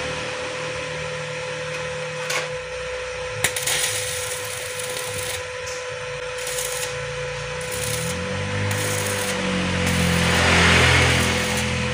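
Stick-welding arc crackling and hissing as an electrode welds locking pliers onto an electric motor's shaft. It swells to its loudest about ten seconds in, as the arc flares.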